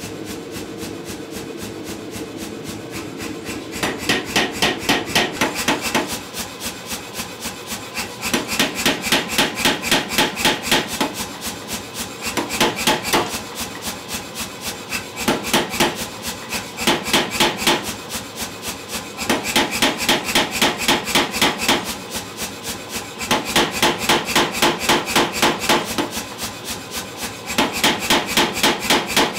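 Power hammer forging a hot block of 4140 steel: after a few seconds of steady machine noise, the ram strikes in rapid runs of about five blows a second, each run lasting two or three seconds, with short pauses between runs.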